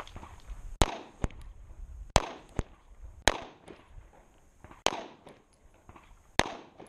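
About eight pistol shots from a compact backup pistol, fired at a slow, uneven pace, roughly half a second to a second and a half apart, with the last shot near the end.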